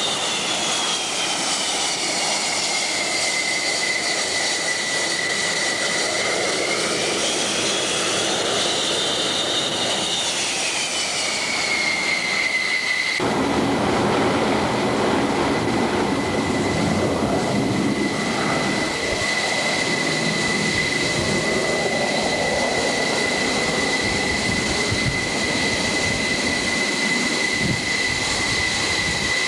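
Jet engine running with a high turbine whine over a broad rushing roar. The whine dips, rises and falls back in pitch during the first dozen seconds, then holds steady. About halfway through, the roar abruptly grows fuller.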